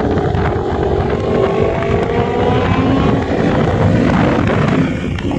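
Sport-bike engines running at highway speed, their pitch climbing slowly as they accelerate, with wind rushing over the microphone.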